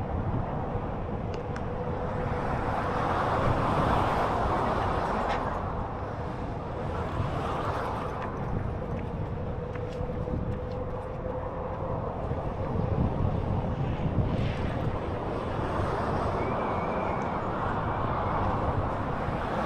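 Wind rushing over the microphone and rolling noise from an electric Onewheel board being ridden, swelling and easing every few seconds, with city traffic in the background. A faint steady whine runs through the first half.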